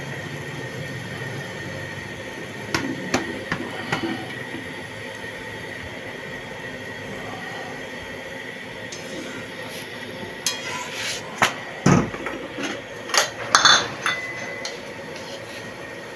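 Metal kitchen utensils clinking and knocking against a pan or griddle over a steady hiss: a few knocks about three to four seconds in, then a busier run of clinks and knocks from about ten to fourteen seconds in.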